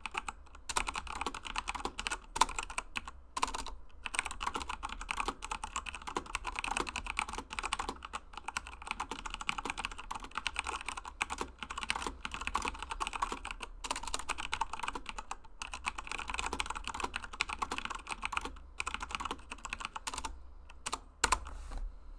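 Fast continuous typing on a Corsair K95 Platinum RGB mechanical keyboard with Cherry MX Brown switches: a rapid stream of key clacks broken by a few short pauses.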